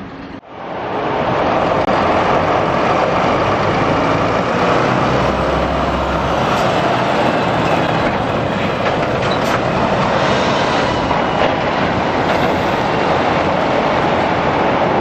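Heavy truck's diesel engine running close by: a loud, steady noise that fades in quickly after a short gap about half a second in and holds evenly.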